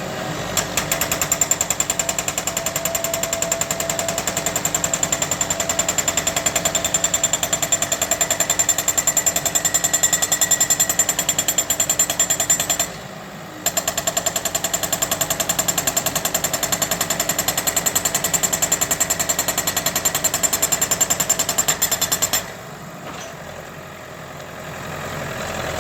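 Loud, very rapid mechanical hammering from the tractor backhoe machine. It stops briefly about 13 seconds in, then ends near 22 seconds, leaving the tractor engine idling.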